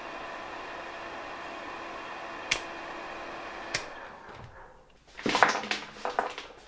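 1965 Fema RSW-1 hair dryer with a SAZ-2 motor running steadily and blowing warm air. Its switch clicks twice, and after the second click the motor winds down and stops. Then comes a clatter of hard plastic hair dryers handled on a table.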